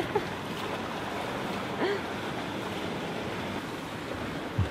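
Steady rush of wind and water around a sailboat under way, with two brief faint sounds, one near the start and one about two seconds in.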